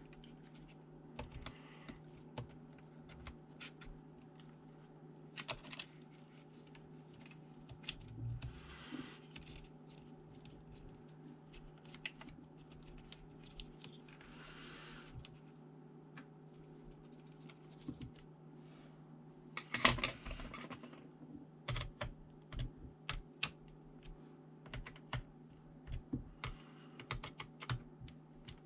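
Irregular light plastic clicks and taps from hands working on a ThinkPad T400 laptop. There are a couple of brief rustles, and a louder cluster of clatter about twenty seconds in, over a faint steady hum.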